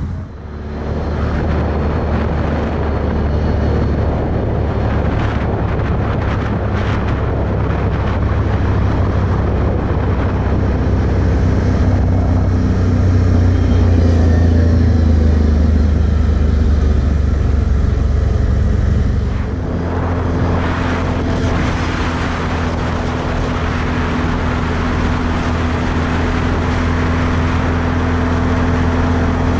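Can-Am Outlander 1000 ATV's V-twin engine running under way on pavement, with a steady rushing noise over it. The engine note rises in pitch around the middle and changes abruptly about two-thirds of the way through.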